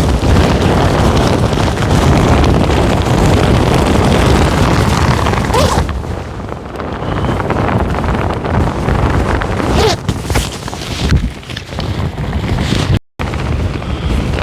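Extreme gusting wind buffeting the microphone with a heavy low rumble; it eases a little about six seconds in, then gusts again.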